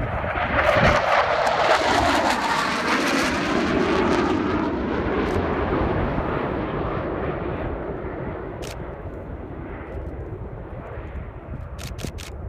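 Panavia Tornado jet flying past with its twin RB199 turbofans, loudest in the first few seconds, the pitch dropping as it passes, then fading away.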